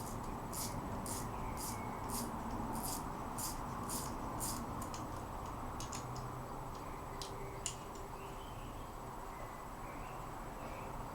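Work on metal vise parts during reassembly: about nine short hissy strokes at roughly two a second, then a few scattered sharp clicks.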